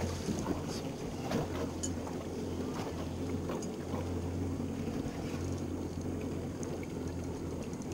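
Steady low hum of a small fishing boat's outboard motor running at idle, with scattered light knocks and clicks on the boat.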